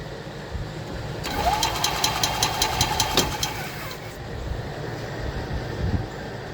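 Golf cart's Kawasaki 400 EFI engine cranking over on the starter for about two and a half seconds, about six even pulses a second over a steady whine, without catching. It is the turn-over-no-start fault being diagnosed.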